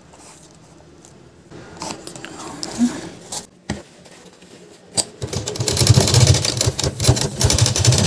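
Sewing machine stitching through bag fabric, a fast steady run of needle strokes that starts about five seconds in. Before it, quiet handling of the fabric with a few clicks.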